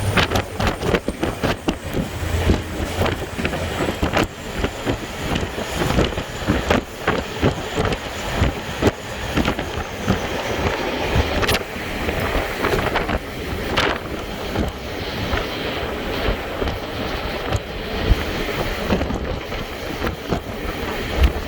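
Northern Explorer passenger train running on the rails, a steady rumble of wheels on track with many irregular clicks and knocks, with wind buffeting the microphone.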